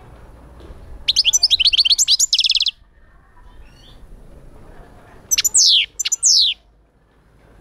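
European goldfinch singing in a cage: a rapid run of high twittering notes about a second in, then a few sharp downward-sliding notes near the end.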